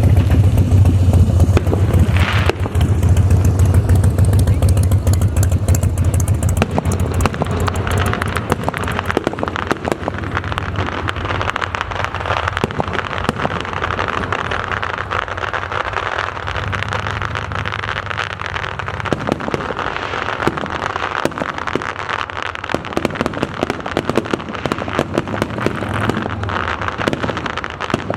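Aerial fireworks display: a dense, continuous crackling of many small pops. A low rumble under it fades over the first several seconds.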